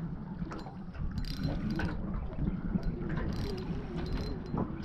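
Fishing reel being cranked, its gears clicking and ratcheting irregularly, while a hooked squid is wound in on a jig.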